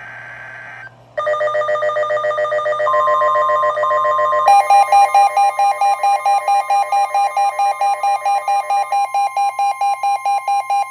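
Weather-radio emergency alert tones: the end of a screeching digital data burst, then fast electronic beeping about five beeps a second. About three seconds in a steady single-pitch warning tone starts, and about four and a half seconds in the beeping jumps in pitch and gets louder, running on with the steady tone.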